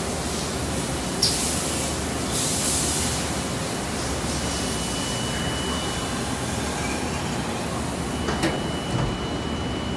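Viper VTL-16/20M CNC vertical lathe running under power with a steady machine noise. Two short bursts of hiss come in the first three seconds, a faint high whine joins about halfway, and a couple of knocks sound near the end as the ram moves.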